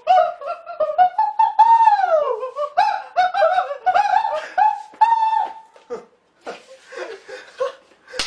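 Male voices shrieking very high falsetto notes in short squawky bursts, with one long note bending down in pitch about two seconds in. The notes give way to laughter near the end.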